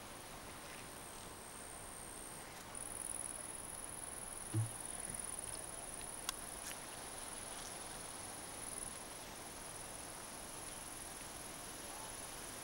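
Steady, high-pitched drone of field insects, growing louder about three seconds in. A single low thump comes about four and a half seconds in, and a short sharp click about six seconds in.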